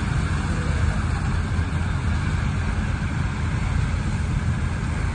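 Matharu 4600 combine harvester running steadily while working a wheat field, its engine and threshing machinery making a constant low, heavy drone, with a tractor running alongside.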